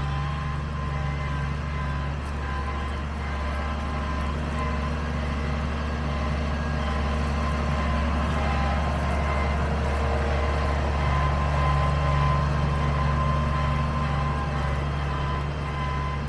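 Case IH Maxxum 140 tractor's diesel engine running steadily, a little louder in the middle of the stretch.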